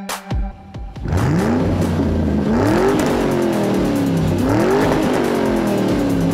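Monster truck engine revving again and again: the pitch rises with each rev and falls back, roughly every second and a half, after a brief quieter moment near the start.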